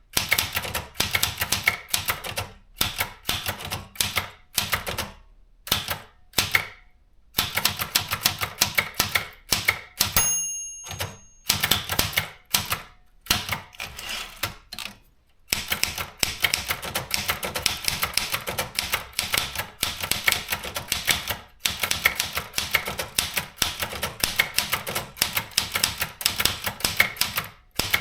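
Privileg JP 1 typewriter being typed on: fast runs of sharp key clacks, broken by short pauses. About ten seconds in, a single ringing chime sounds, the typewriter's end-of-line bell.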